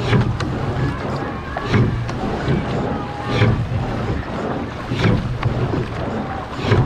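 Pair rowing shell under way: water rushing along the hull close to the microphone, with a rhythmic surge, splash and knock at each stroke, about every 1.7 seconds. Wind on the microphone runs underneath.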